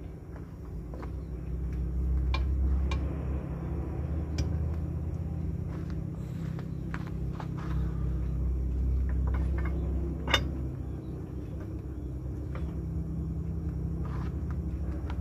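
A truck's diesel engine idling with a steady low hum, with scattered metallic clinks and knocks of tools and wheel parts as a tyre is changed. One sharp clank comes about ten seconds in.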